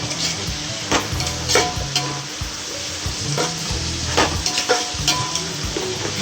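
Sliced onions, green chillies and mint frying in hot oil in a pan, with a steady sizzle. The pan is being stirred, with several short scrapes and knocks of the utensil against it.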